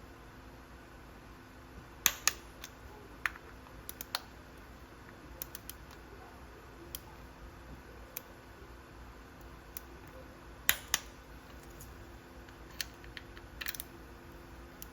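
Scattered sharp metallic clicks and taps of a torque wrench and socket on the Sportster's primary cover bolts, about a dozen at uneven intervals. The loudest come as two quick pairs, a couple of seconds in and again about two-thirds of the way through.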